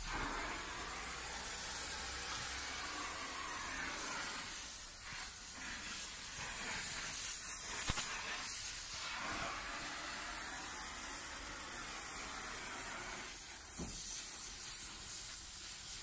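Gas brazing torch hissing steadily as its flame heats a steel refrigerant cylinder and a brass filler rod is melted onto it. A single sharp click about halfway through.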